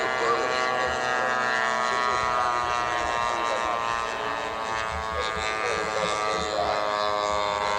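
Engine of a radio-controlled scale warbird model plane droning steadily as it flies overhead, dropping slightly in pitch a couple of seconds in, with faint voices underneath.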